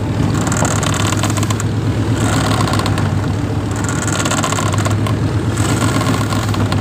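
A boat's inboard engine running steadily with a deep, even hum. A rushing hiss of churning water swells and fades about four times over it.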